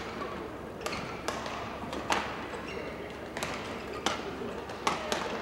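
Badminton court sounds: about seven separate sharp taps and clicks from racket-on-shuttlecock hits and players' shoes on the court mat, a couple with a brief squeak, over the steady hum of a large hall.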